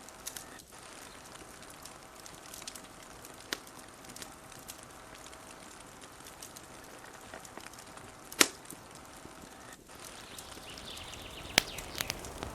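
Wood fire crackling, with a steady hiss and scattered sharp pops, the loudest about eight seconds in and a few close together near the end.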